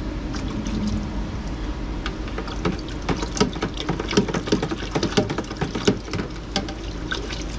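Reverse-osmosis water running from a hose into a plastic hydroponic bucket as it fills, a steady splashing trickle with a run of quick, irregular splashes and clicks over the middle few seconds.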